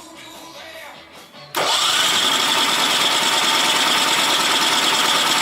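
Champion 3500-watt dual-fuel generator's engine being started on gasoline with the electric start. It cuts in suddenly about a second and a half in with a brief rising whine and then keeps going loud and steady. This is its cold first start, with the choke pulled out.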